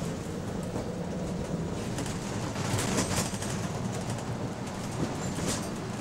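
Double-decker bus running along the road, heard from inside on the upper deck: a steady rumble of engine and road noise, with a couple of sharp rattles from the bodywork and fittings about halfway through and near the end.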